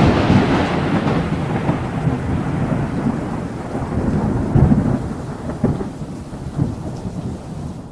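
Thunder-like rumble used as an intro sound effect, fading slowly from a loud hit just before, with a rain-like hiss over it and three low thuds in the second half.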